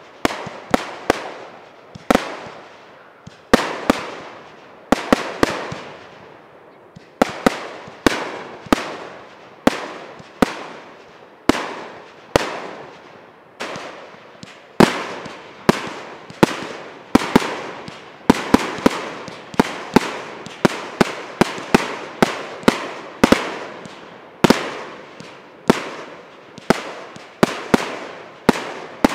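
Aerial fireworks going off in a rapid, continuous series of sharp bangs, one to three a second, each trailing off in a rolling echo.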